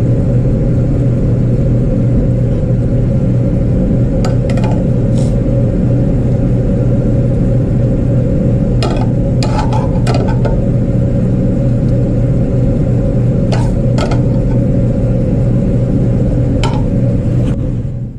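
A loud, steady low mechanical drone of kitchen equipment runs throughout. Over it come a handful of short metallic clinks as steel tongs knock against a stainless skillet while meat and cheese sauce are scooped into a roll. The sound fades away at the very end.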